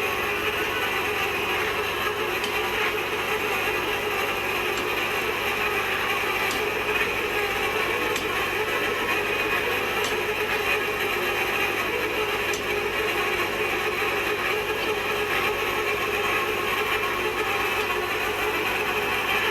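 Manual hot tapping machine cutting into a pipe: a steady mechanical grinding with a faint ratchet click about every two seconds.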